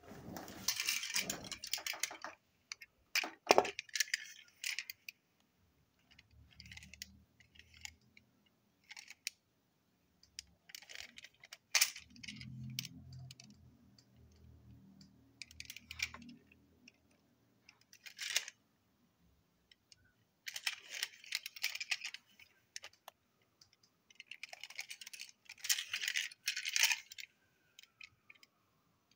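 Plastic toy train trucks being handled: scattered clusters of light clicks and rattles as the wagons, their wheels and hook couplings knock together in the hand.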